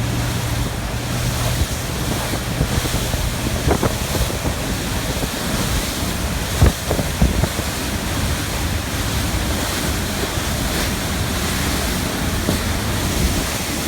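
Strong wind buffeting the microphone over the rush of choppy sea water, with a low steady boat-engine hum for the first few seconds and two short thumps a little past halfway.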